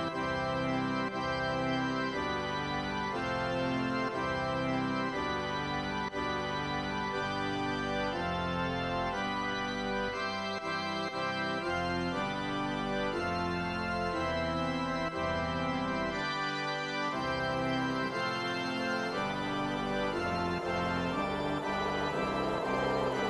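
Background music: sustained organ-like keyboard chords, changing about once a second.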